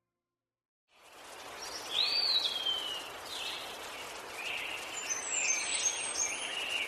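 Birds calling over a steady hiss of outdoor ambience, fading in after about a second of silence: one arched call about two seconds in, then a run of short high chirps near the end.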